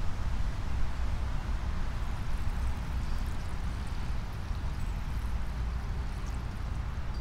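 Clear water being poured off settled clay slip from a tilted plastic bucket, a thin stream starting to run out about four seconds in, over a steady low rumble.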